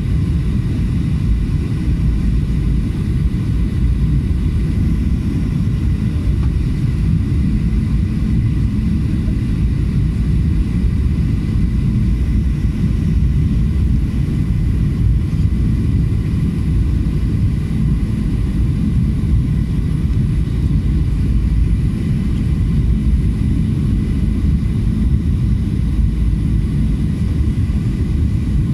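Steady cabin rumble of a Boeing 737-800 jet airliner on approach, heard from a window seat beside the turbofan engine: a dense low roar of engine and airflow with a faint steady high whine above it.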